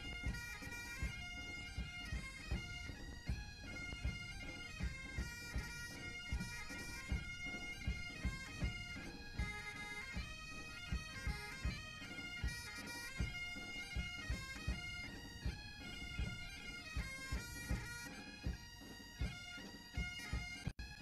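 Military pipe band playing: a bagpipe melody over a drum beat.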